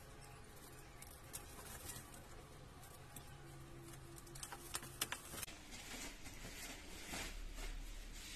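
Packaging being cut and pulled open by hand: faint rustling and small ticks, a few sharp clicks about four to five seconds in, then louder crinkling of wrapping near the end.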